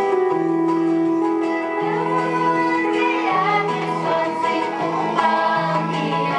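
A group singing a song together, with instrumental accompaniment and a bass line that changes note about once a second.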